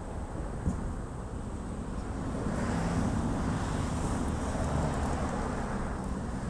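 Road traffic going by: a steady rumble with a vehicle passing that swells about halfway through and fades toward the end, with wind on the microphone.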